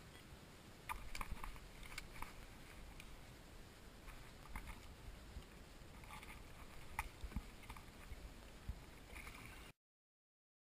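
Faint scattered knocks and clicks over a steady low rumble, typical of gear and hull knocking aboard a fishing kayak on the water.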